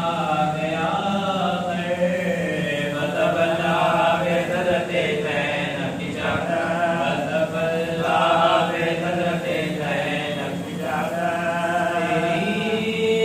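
Men's voices chanting a devotional recitation in a slow, melodic line, led from a book at the microphone.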